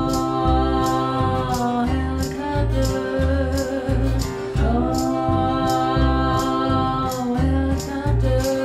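A woman singing lead over a live acoustic trio: strummed acoustic guitar and plucked upright bass keep a steady two-beat pulse, and a hand-held tambourine is struck about twice a second.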